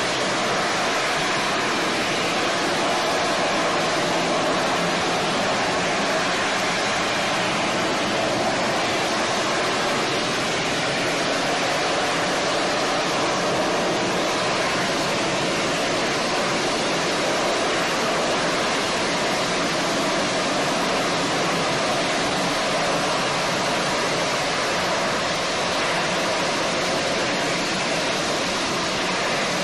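AV-8B Harrier's Rolls-Royce Pegasus vectored-thrust turbofan running at hover power as the jet holds a hover and descends for a vertical landing. It makes a loud, steady rushing noise that does not change.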